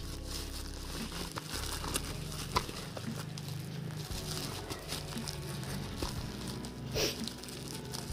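Plastic packaging crinkling and crackling as hands squeeze and pull at a parcel wrapped in black plastic and tape, with sharper crackles about two and a half seconds in and near the end. Soft background music plays underneath.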